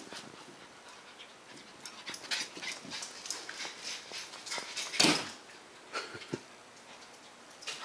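A dog panting in short, irregular breaths, with a sharp knock about five seconds in.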